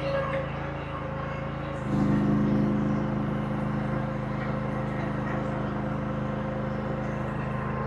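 Engine of a Chinese compact earthmoving machine (mini excavator or skid steer) running at work, with a steady high whine over it. About two seconds in, the engine note steps up and gets louder, then holds steady.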